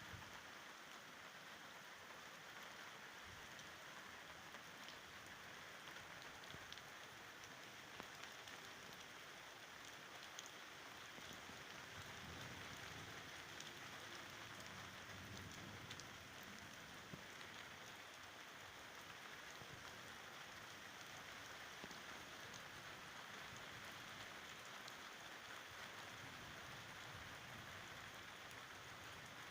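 Faint, steady rain falling in a thunderstorm: an even hiss with scattered small drop ticks.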